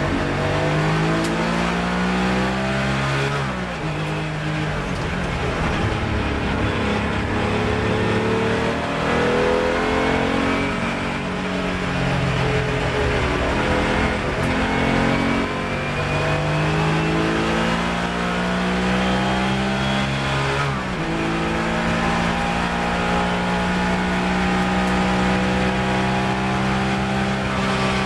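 Race car engine heard from inside the cockpit under hard acceleration. Its pitch climbs with the revs and drops suddenly at each of several upshifts, ending in a long, steady high-rev run.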